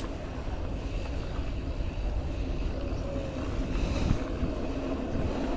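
Steady low rumble of wind on the microphone, with tyres rolling over a dirt trail, as a mountain bike is ridden.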